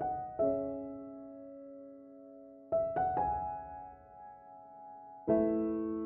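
Slow, gentle piano music: a few chords struck every second or two and left to ring out and fade.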